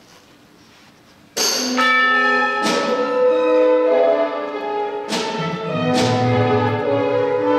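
Symphony orchestra music entering suddenly after about a second and a half of quiet hall tone: loud sustained chords punctuated by about four ringing, bell-like strikes.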